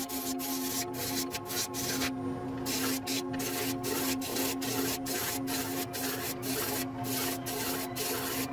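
Wood lathe spinning a cedar blank while a turning tool cuts it: a hissing scrape that comes and goes in short strokes, with a brief pause about two seconds in, over the lathe's steady hum.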